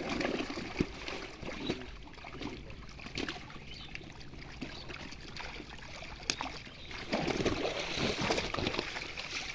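Water splashing and sloshing in a pond during net fishing, with scattered knocks; it grows louder about seven seconds in.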